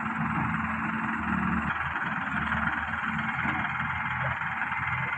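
Heavy diesel machinery running steadily, with a constant hiss over the engine's low hum.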